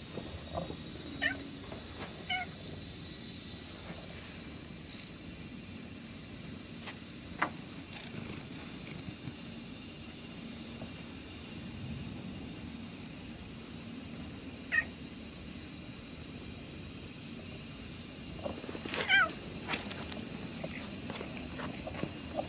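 Stray cat meowing a few times in short calls: once about a second in, again a second later, once near the middle, and loudest about 19 s in. A steady high drone of insects runs underneath.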